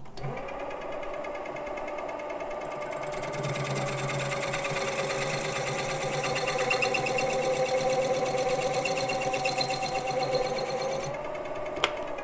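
Mini lathe running with a steady motor whine, its three-jaw chuck spinning a machined metal clock-face ring. From about three seconds in, a deburring tool scrapes the ring's edges with a bright hiss that grows louder and stops near the end.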